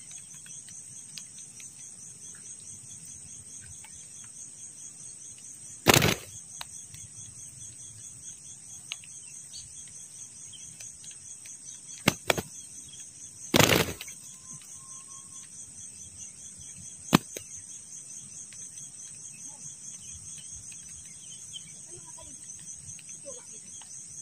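Insects chirring steadily in a high, pulsing chorus, broken by a handful of sharp, loud wing slaps from two doves scuffling on the ground: one about a quarter of the way in, a quick pair and a slightly longer burst around the middle, and a last single slap about two-thirds through.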